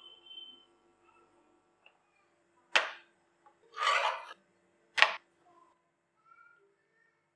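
Metal spatula working a raw onion chapati on a flat tawa: a sharp knock, then a scrape lasting about half a second, then another sharp knock.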